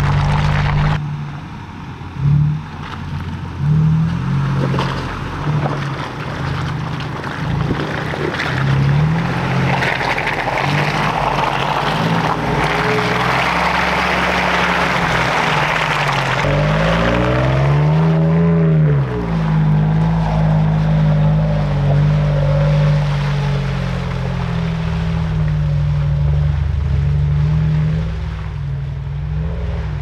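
Off-road SUV engine running while driving a rough trail, with tyre and road noise; the engine pitch rises and falls once about two-thirds of the way in.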